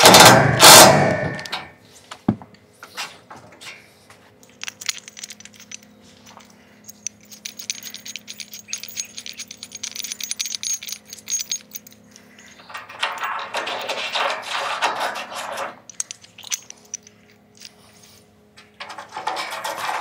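Cordless drill driving a fastener into a rail-mounting bracket, a loud run of about a second at the start. After it come scattered clicks, clinks and scraping of small metal mounting clips being handled and slid into an aluminium solar rail.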